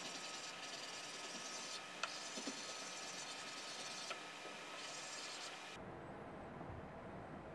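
Paper being rubbed by hand over an inked woodblock to take a print: a steady scratchy rubbing hiss, with a few light clicks. Near the end the rubbing stops suddenly and only a low rumble is left.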